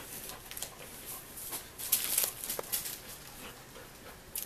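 Dogs stirring close by: a few short whimpers among scattered clicks and rustles, loudest about two seconds in.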